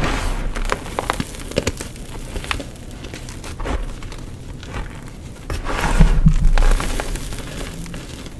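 Gym chalk blocks being crushed and crumbled, a crunchy crackling made of many small sharp cracks, growing louder about six seconds in.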